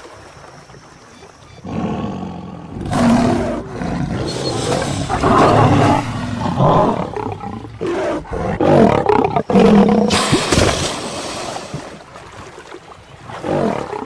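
Lion roaring and growling in repeated loud, rough bouts during a fight with crocodiles. It starts after a quieter opening second or two and tails off near the end.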